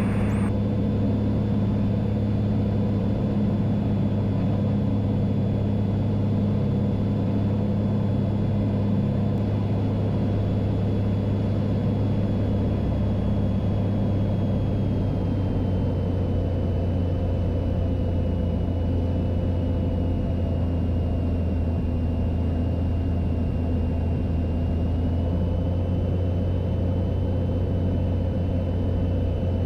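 Cessna 182's piston engine and propeller droning steadily in the cockpit on approach to land, pitch dipping slightly about halfway through and rising a little near the end.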